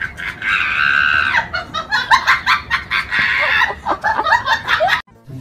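A person laughing hard in rapid, high-pitched cackles, broken by two drawn-out squealing shrieks, about half a second in and around three seconds in. It cuts off suddenly shortly before the end.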